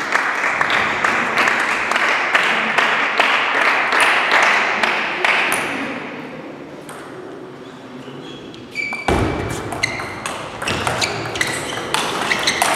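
Table tennis balls clicking sharply off bats and tables, many irregular clicks in a hall with a reverberant background hum. A low thump comes about nine seconds in, after which the clicks grow denser.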